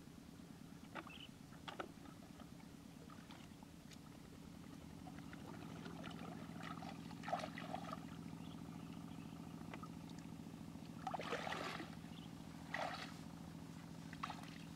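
Water splashing and sloshing as a man wades and works his hands in shallow flooded paddy water, a few louder splashes standing out. Under it runs a steady low motor drone that grows a little louder about five seconds in.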